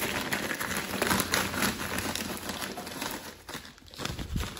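Rustling and crinkling of things being handled and shifted about, with scattered small clicks; it dies down about three and a half seconds in.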